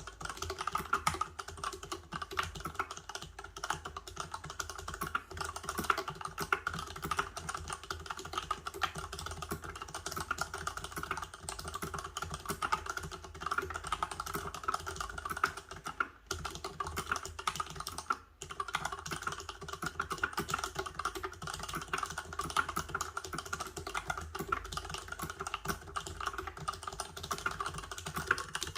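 Continuous typing on a Varmilo VA87 tenkeyless mechanical keyboard with Cherry MX Silent Red switches: a dense stream of keystrokes with two brief pauses, about 16 and 18 seconds in.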